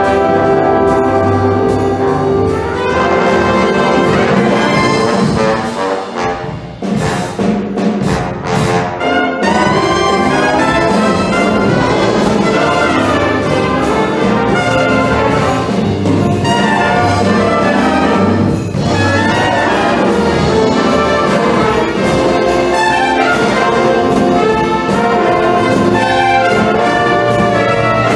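Wind band playing with brass to the fore, trombones and trumpets carrying the tune. There is a short dip about six seconds in, followed by a few sharp percussion hits.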